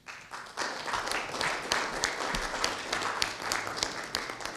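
Audience applauding, many hands clapping at once; it starts abruptly and dies away near the end.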